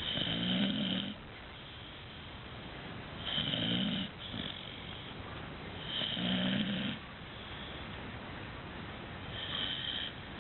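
Dogue de Bordeaux puppy snoring while asleep: four snores about three seconds apart, the last one softer.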